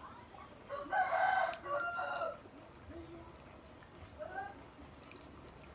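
A rooster crowing once, about a second in, a drawn-out call of about a second and a half with a short break in it. A shorter, fainter call follows a few seconds later.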